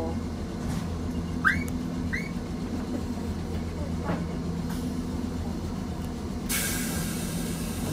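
A Randen tram standing still with its equipment giving a steady low hum. Two short rising chirps come about a second and a half and two seconds in. A loud hiss starts about two-thirds of the way through.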